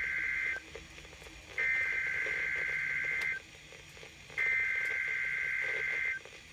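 EAS SAME digital header on NOAA Weather Radio: bursts of rapidly warbling two-tone data, the end of one burst followed by two full bursts of nearly two seconds each with about a second's pause between them. This is the coded header that opens an alert and triggers weather-radio receivers, here for a test tornado warning.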